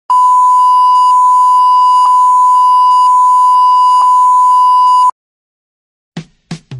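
Steady high-pitched reference test tone of the kind played with colour bars, running about five seconds and cutting off suddenly. Two short thumps come near the end as music begins.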